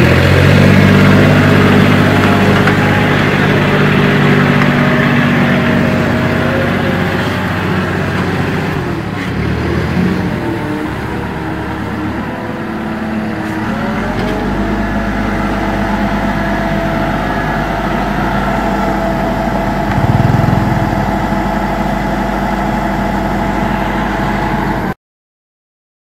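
Diesel engines of small construction machines running under load: first a compact WS200R backhoe loader, then, after a change about halfway, a wheeled excavator's engine running steadily. The sound cuts off suddenly about a second before the end.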